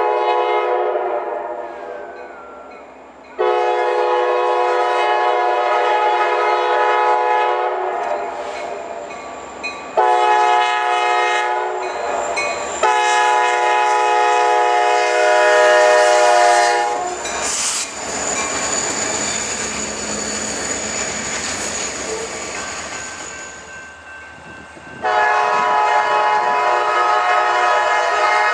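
Diesel locomotive multi-chime air horn sounding for a grade crossing: a long blast, a short one, then another long one, as the train closes in. The locomotive then passes with a loud rush of sound, followed by wheels clacking steadily over the rails. Near the end the horn starts blowing again.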